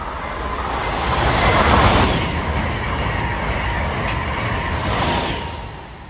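Amtrak Acela high-speed train passing the platform at speed without stopping: a rushing noise of wheels and air that builds, is loudest about two seconds in, holds, then falls away quickly near the end as the train clears.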